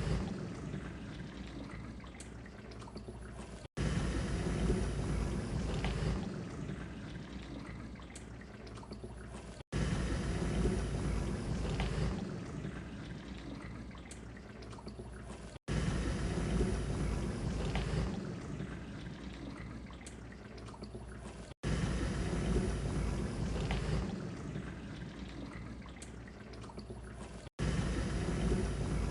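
Dishwasher running, water splashing inside it. The same stretch of about six seconds repeats, each time after a brief drop-out, starting with a louder surge that then eases off.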